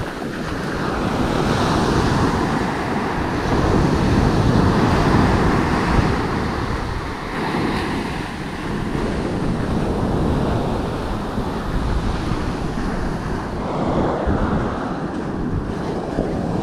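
Small waves breaking in the shallows and foam washing up the sand, with wind buffeting the microphone in a low rumble. The wash swells and eases over a few seconds at a time.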